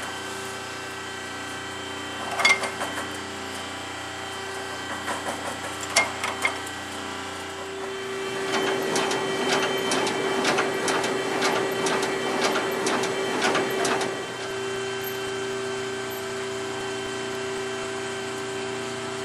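Square baler being turned over slowly by a hydrostatic PTO drive unit, with a steady mechanical hum throughout. A couple of sharp clicks come in the first few seconds, then a stretch of dense, rapid clattering from the baler's knotters and drive in the middle.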